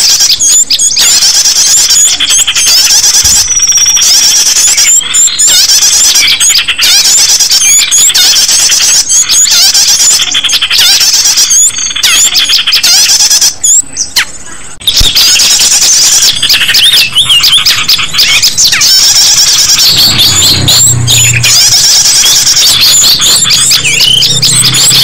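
Bird-lure recording of small birds: a loud, dense chorus of high-pitched chips, squeaks and short whistles packed closely together. It dips briefly a little past halfway.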